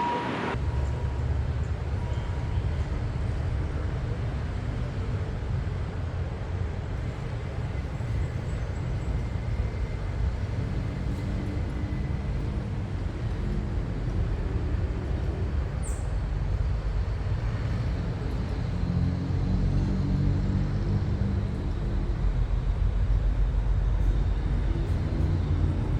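Kiha 183 diesel railcar's engines running under power, a steady low drone that grows louder through the second half as it works hard enough to throw out smoke.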